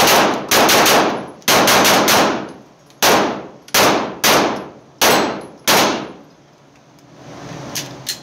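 Arex Delta Gen 2 9mm pistol firing in an indoor range, each report echoing off the walls: a fast volley of about nine shots in quick pairs and triples over the first two seconds, then five single shots a little over half a second apart, the last about six seconds in.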